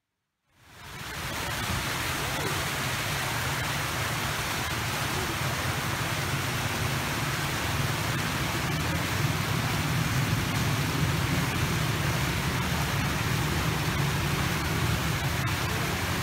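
Many fountain jets spraying and splashing into a pool as a steady rush of water. It fades in about half a second in.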